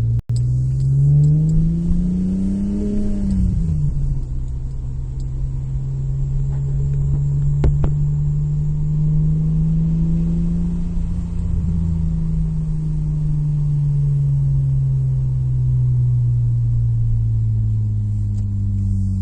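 Nissan Maxima V6 with aftermarket headers and exhaust running. It is revved up and let back down once in the first few seconds, then held a little above idle, its pitch slowly climbing and easing back down. There is a single sharp click about eight seconds in.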